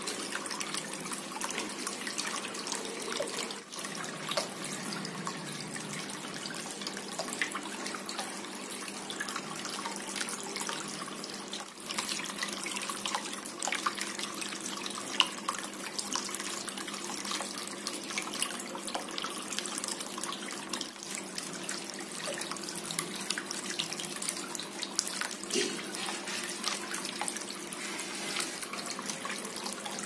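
Water from a small cement tabletop waterfall fountain trickling down its stepped tiers into a pebble-lined basin: a steady splashing with many small drips.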